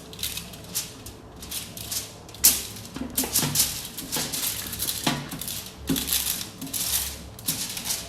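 Crinkling and rustling of aluminium foil on a baking sheet, with light clatters of kitchen handling, in irregular bursts.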